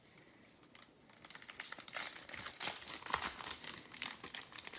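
Plastic wrapper of a Donruss football card pack crinkling and tearing as it is ripped open. The sound starts about a second in and gets busier and louder toward the end.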